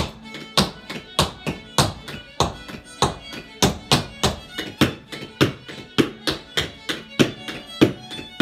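Hard-soled stepdance shoes tapping and stamping on a plywood dance board in a steady rhythm, loud strikes about every half second with quicker, lighter taps between, over a fiddle tune.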